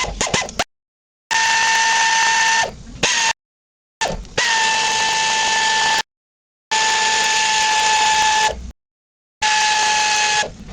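A power driver spinning in four short runs of about two seconds each, a steady whine that starts and cuts off abruptly each time, as the clutch spring bolts on a Yamaha YFZ450 engine are run down.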